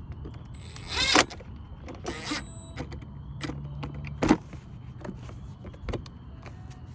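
Sharp plastic and metal clicks and clacks of a car door handle being handled and fitted during a handle swap, a few seconds apart, the loudest about a second in and about four seconds in.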